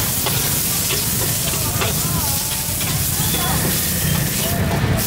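Noodles sizzling in a large wok of hot oil while a metal ladle stirs and scrapes the pan, with light clicks of metal on metal.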